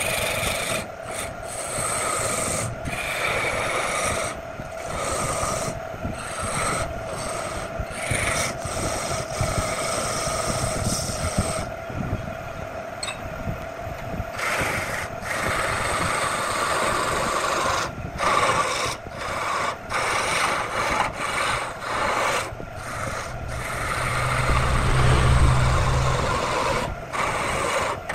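Chisel cutting a spinning wood blank on a wood lathe: a continuous scraping hiss broken by many short gaps as the tool comes off the wood, over the lathe motor's steady hum. Near the end a heavier cut adds a deeper rumble for a couple of seconds.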